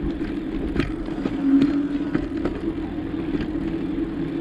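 Bicycle in motion on a ride: a steady low hum with scattered light rattling clicks, the hum swelling briefly about one and a half seconds in.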